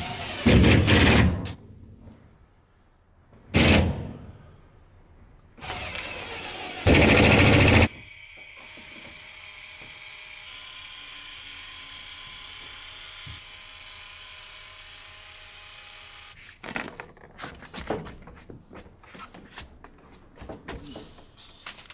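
Cordless power driver running in short loud bursts, driving screws through a window's nailing flange into the wall sheathing: two quick bursts at the start, another around four seconds in and a longer one ending about eight seconds in. Near the end, a run of knocks and clatter as a window frame is handled.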